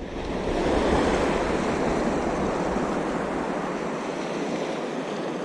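Sea surf breaking and washing up the beach, a steady rushing that swells about half a second in.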